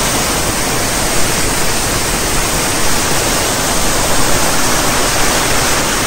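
Waterfall: water pouring down a rock face and splashing below, a steady, loud rush.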